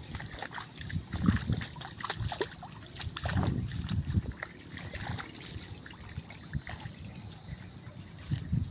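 Footsteps wading through shallow water and mud, with irregular splashes and sloshing.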